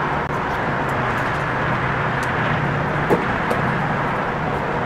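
Steady rumble of an idling vehicle engine, with a constant low hum under it. A brief sharp sound stands out about three seconds in.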